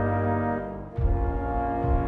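Background music: a held chord fades away, and about a second in a new passage starts with low, sustained chords.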